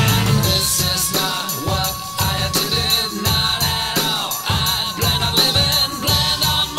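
Music from a rock song: a steady beat under a long held note that dips about four seconds in and then slides down.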